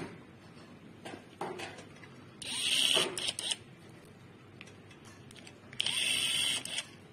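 Small metal parts of a fluid head being handled and fitted by hand, with a screw worked into the handwheel with a hand tool: a few light clicks, then two harsh, noisy bursts of about a second each.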